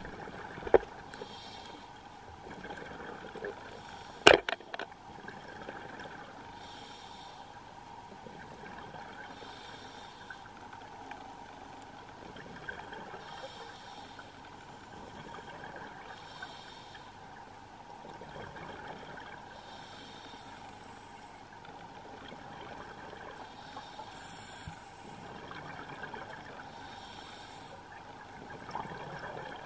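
Scuba diver breathing through a regulator underwater, a hissing breath about every three seconds over a steady low hum. Two sharp clicks sound in the first few seconds.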